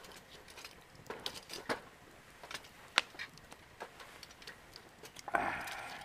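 Wood campfire crackling with scattered sharp pops, the loudest about three seconds in. Near the end, a short scraping rustle.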